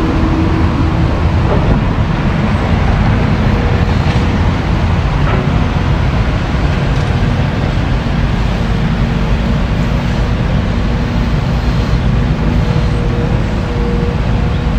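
Caterpillar hydraulic excavator's diesel engine running steadily while it digs and swings, a low rumble with a faint steady hum and a few faint knocks.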